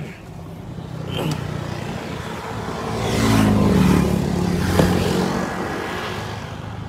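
Car running at low speed with the window open: a steady engine hum and road noise. Another vehicle passes in the middle, getting louder and then fading away.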